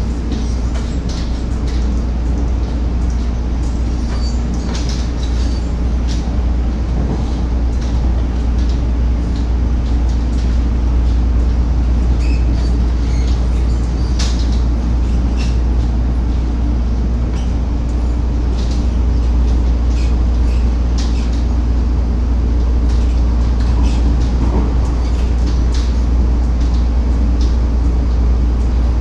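Cabin noise of an MTR East Rail Line Metro-Cammell electric multiple unit (MLR refurbished stock) running at speed: a steady low rumble from wheels on track, a steady hum, and scattered sharp clicks. It grows slightly louder in the second half.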